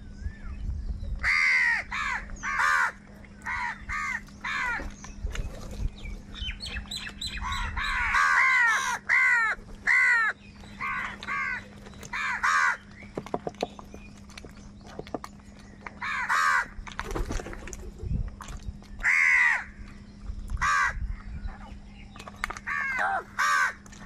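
A flock of house crows cawing: harsh, rasping calls in quick runs of two to four, several birds overlapping, with short gaps between runs.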